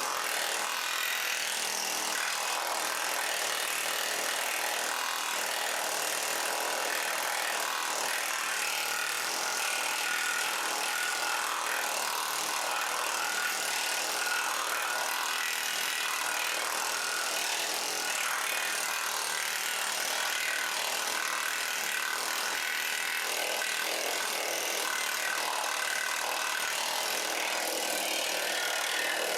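Pneumatic planishing hammer running continuously on sheet metal, its rapid blows blurring into a steady, high-pitched rattle.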